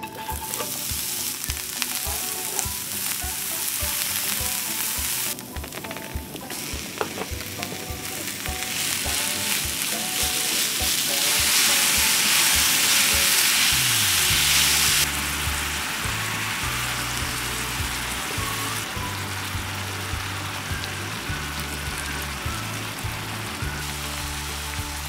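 Ground beef-and-pork mince and chopped onions sizzling as they stir-fry in a cast-iron skillet over medium heat, with a wooden spatula stirring. The sizzle dips briefly about five seconds in, is loudest around the middle, then eases a little.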